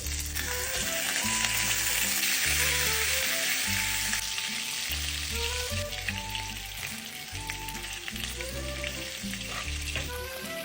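Duck steak frying in a hot pan, sizzling loudly for the first few seconds, then more quietly.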